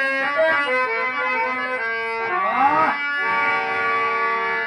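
Instrumental music of a nautanki troupe: a reedy melody of held notes that step from one pitch to the next, with a bending, sliding phrase about two and a half seconds in.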